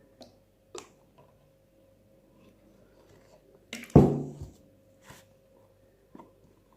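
Sticky homemade slime being kneaded by hand: a few soft, short squishing sounds, with one loud knock about four seconds in that rings briefly, under a faint steady hum.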